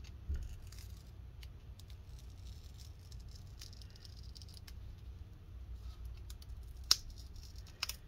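Fingers handling a flat ribbon cable and adhesive-backed tape on a laptop chassis: faint rustling with scattered small plastic clicks, and one sharper click about seven seconds in.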